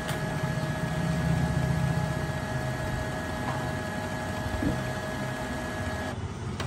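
Canon ink-tank printer's internal motor running with a steady whining hum, which cuts off near the end.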